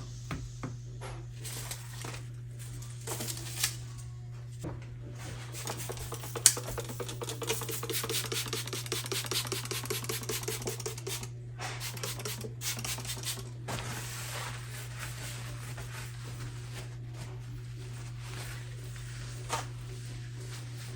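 Paper towel wiping and scrubbing a stovetop, with a long stretch of quick repeated rubbing strokes in the middle. A single sharp knock comes about six and a half seconds in, and a steady low hum runs underneath.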